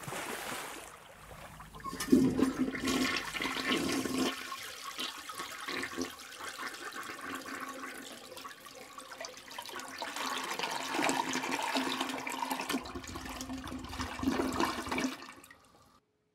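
Rushing water for about sixteen seconds, with a steady low hum in parts, cutting off suddenly near the end.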